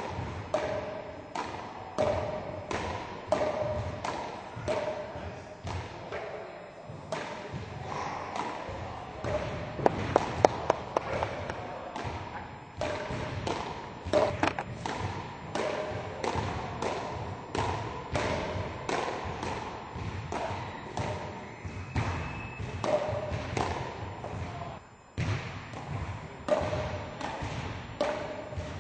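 Frescobol paddles hitting a small ball back and forth in a steady rally: a sharp knock about every second or less. A quick flurry of louder cracks comes about ten seconds in, and the rally stops briefly near the end.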